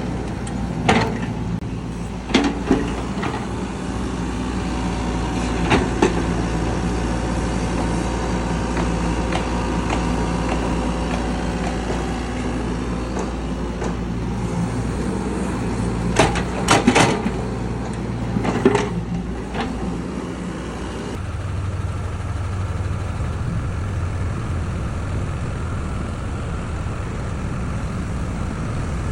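Heavy diesel construction machinery running steadily, with several sharp metallic clanks at intervals and a cluster of them past the middle. About two-thirds of the way through, the engine's note changes to a different low drone.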